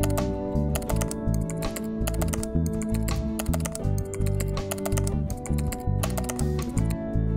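Computer-keyboard typing sound effect, quick runs of key clicks with short pauses between them, over background music with a heavy bass beat.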